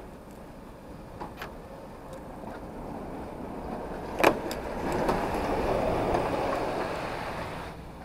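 A sharp click as the charging plug is released from an electric van's charge port, with a few faint clicks a little earlier. About three seconds of steady rushing noise follows and stops suddenly.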